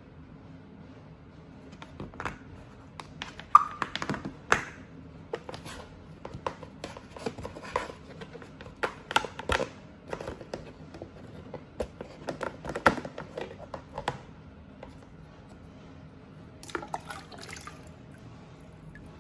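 Collapsible plastic-and-silicone water scoop being handled and pressed into shape: an irregular run of clicks and knocks. Near the end comes a brief splash as it is dipped into a bucket of water.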